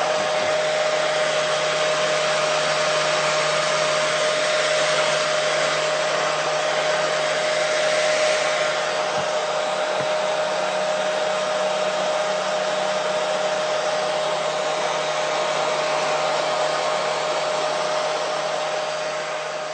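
Hair dryer running steadily: an even rush of blown air with a constant tone from its motor, played as white noise to soothe a colicky baby to sleep.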